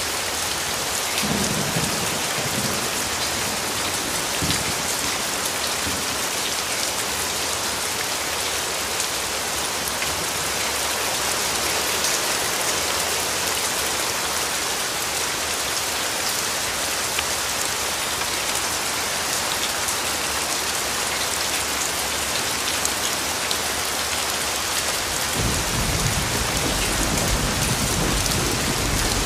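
Steady heavy rain, with low rolls of thunder: a short one about a second in and a longer one near the end.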